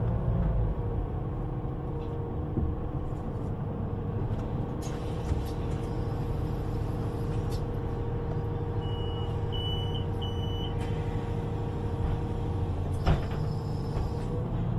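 U-Bahn train standing at a platform, heard from inside the car. There is a steady low rumble and hum from its equipment. A short series of door-warning beeps sounds about two-thirds of the way through, and a sharp knock of the doors closing follows a couple of seconds later. Near the end the motor tone begins to rise as the train starts off.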